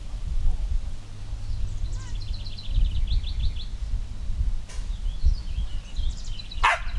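A songbird singing two fast trills of repeated high notes, the first stepping down in pitch, over a low rumble, with a sharp click near the end.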